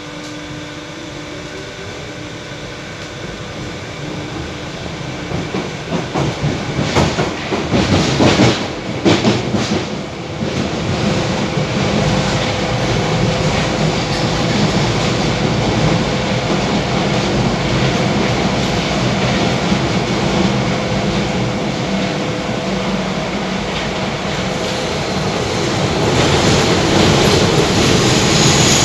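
Paris Métro MF77 train heard from inside the passenger car, running in a tunnel. The sound builds over the first ten seconds as the train picks up speed, with a burst of loud clattering from the wheels over rail joints or points about seven to ten seconds in. After that comes a steady running rumble, with a faint high squeal near the end.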